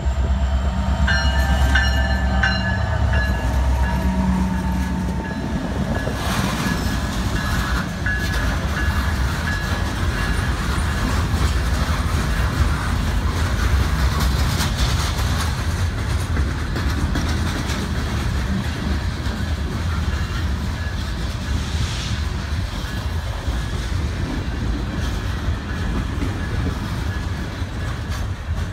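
Norfolk Southern diesel freight locomotive passing close with its engine rumbling and its horn sounding for about the first five seconds. Then the steady noise of a long string of freight cars rolling past.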